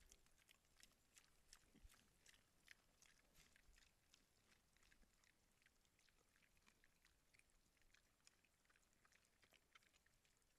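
Faint, irregular clicking and crackling from an animal right up against a trail camera, the clicks thickest in the first few seconds and sparser after.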